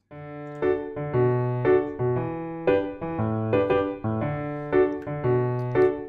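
Background piano music: a light tune of struck notes over a bass line, with about two accents a second.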